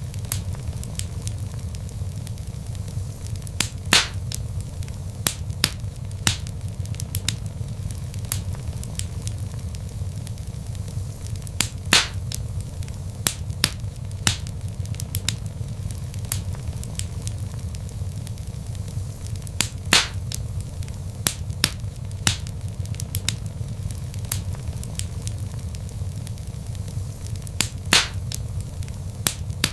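Log fire crackling in a fireplace: a steady low rumble of flames under frequent sharp crackles, with a louder pop about every eight seconds.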